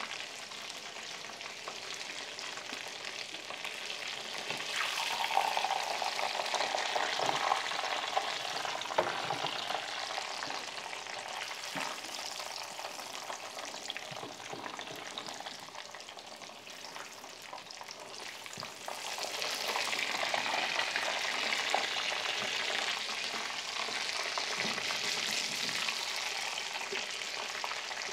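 Breaded chicken nuggets sizzling as they shallow-fry in oil in a frying pan, with a few sharp clicks; the sizzle swells about five seconds in and again just before twenty seconds.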